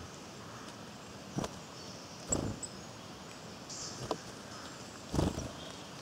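Outdoor woodland ambience with small birds giving brief high-pitched chirps, broken by four short low thumps or rustles, the loudest a little after two seconds in and again about five seconds in.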